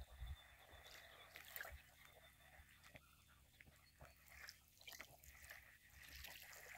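Near silence, with faint scattered clicks and a low rumble.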